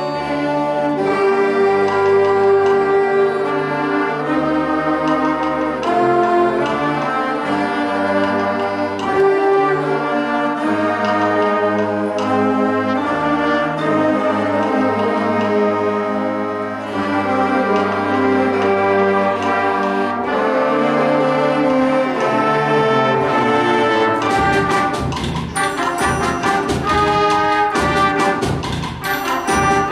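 A school concert band of woodwinds, brass and percussion playing, with held chords from the brass and winds. From about 24 seconds in, a run of sharp percussion strikes joins the band.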